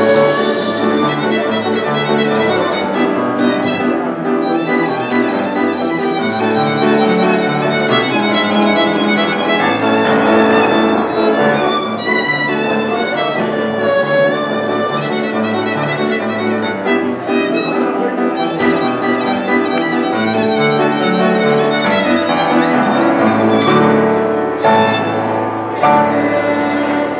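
Solo violin, bowed, playing a continuous melody over upright piano accompaniment, with the piano's bass notes stepping underneath.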